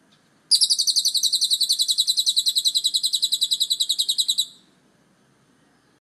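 A caged lovebird giving its ngekek: one long, rapid, high-pitched chattering trill of about ten notes a second. It starts half a second in and lasts about four seconds before stopping abruptly.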